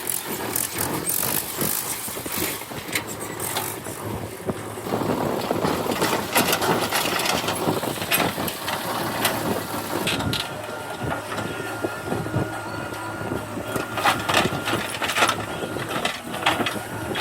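JCB 3DX backhoe loader's diesel engine running as it works soil, with scattered knocks and crunching throughout. A thin steady whine holds for a few seconds past the middle.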